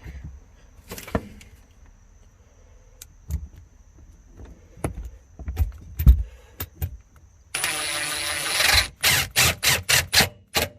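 Hollow knocks and clicks of plastic trunk trim and clips being pressed into place in a car's boot. Near the end comes a loud steady whir of just over a second, then a run of about six quick loud bursts.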